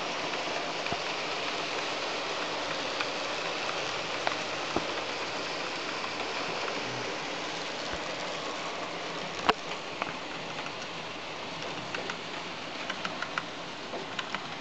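Model trains running past on a layout: a steady hiss of wheels and motors on the track, with scattered sharp clicks, the sharpest about nine and a half seconds in and a cluster near the end.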